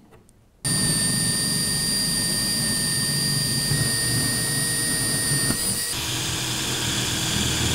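Cordless drill running steadily as it bores through the cork-covered baseboard to make holes for a relocated point's wiring. It starts suddenly about half a second in, and its whine changes pitch about six seconds in.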